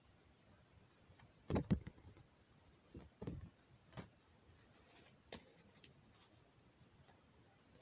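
Quiet handling of paper cards and an envelope: a few scattered soft taps and clicks, the loudest cluster about a second and a half in, then single ones spaced out over the next few seconds.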